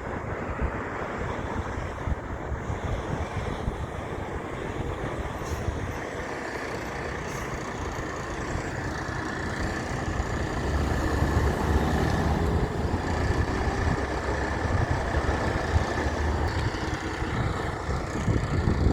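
Heavy truck on the road, its engine rumble and tyre noise growing louder about halfway through as it draws near.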